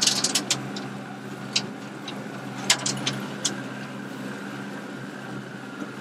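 Motorboat engine running steadily as the boat travels across the water, a low even drone. Sharp clicks and taps come in a flurry at the start and a few more about three seconds in.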